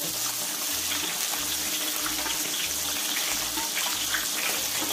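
Whole gourami frying in hot oil in a wok: a steady sizzle with scattered crackles as oil is ladled over the fish.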